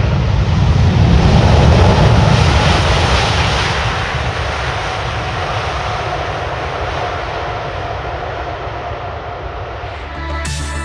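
Heavy jet airliner's engines, a loud rushing roar that peaks about two seconds in and then slowly fades. Music starts just before the end.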